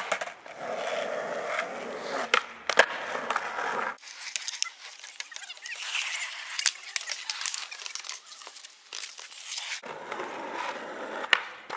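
Skateboard wheels rolling on rough asphalt, with several sharp clacks of the board hitting the ground as flatground tricks are popped and landed.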